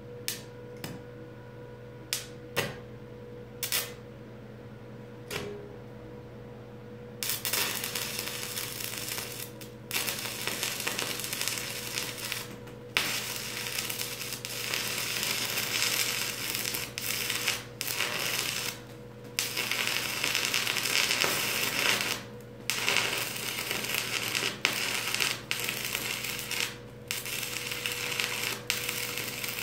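Stick (arc) welder joining a steel post to a steel beam. For the first few seconds there are only a few short, sharp crackles. From about seven seconds in the arc runs as a steady crackling sizzle, broken by several brief pauses.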